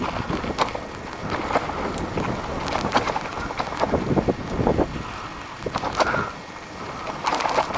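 Bicycle rattling and crunching over a rough dirt trail, with many quick knocks and clicks and wind buffeting the microphone.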